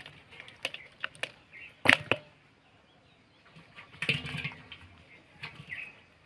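Live spotted snakeheads flopping in a plastic basin: scattered sharp slaps and taps, loudest about two seconds in, with a burst of wriggling about four seconds in.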